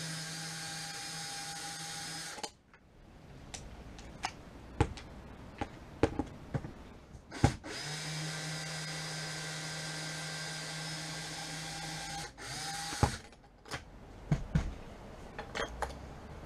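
DeWalt cordless drill running steadily to back out screws, in two runs: one stops about two and a half seconds in, and another runs from about eight to twelve seconds in, with a brief burst just after. Sharp clicks and knocks fall between and after the runs.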